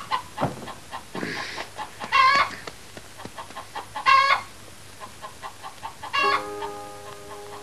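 Chickens squawking: a short, loud call about every two seconds, with soft clucking between. Music with held notes comes in near the end.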